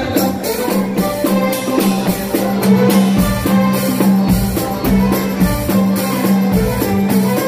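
Chaabi band playing live dance music: a steady, quick drum beat over a held low note.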